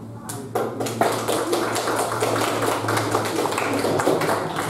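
Audience applauding, many hands clapping together. The clapping starts a moment in and tapers off near the end.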